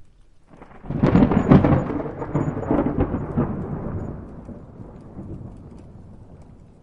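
Thunder rumbling, without rain. A peal breaks in suddenly about half a second in and crackles loudest for the next second or so. It then rolls on with a few more strokes and fades into a low rumble.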